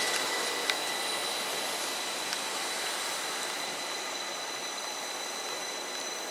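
Northern Rail Class 333 electric multiple unit moving slowly along the platform, with a steady high-pitched whine over a running noise and a few faint clicks; the level eases down slowly.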